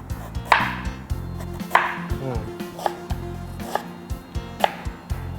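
Knife slicing a green apple on a cutting board: about five crisp cuts, roughly one a second, each ending in a sharp tap of the blade on the board.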